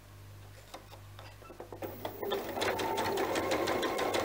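Domestic sewing machine stitching a seam in stretch fabric. After about two seconds of quiet fabric handling with a few faint clicks, it starts up a little past halfway and runs at a fast, steady pace.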